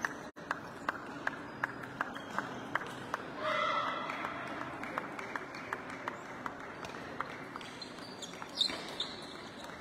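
Table tennis ball clicking off bats and table in a quick, even rhythm, roughly three hits a second. A short burst of voice breaks in a little after three seconds, as the point ends.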